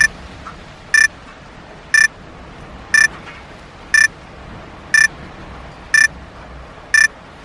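Electronic alarm beeping: eight short, high beeps exactly a second apart, signalling that the timer has run out, over a steady hiss of rain.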